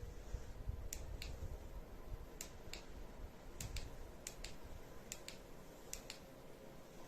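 A series of sharp, dry clicks, most of them in pairs a fraction of a second apart, about a dozen in all, over a faint low rumble of handling.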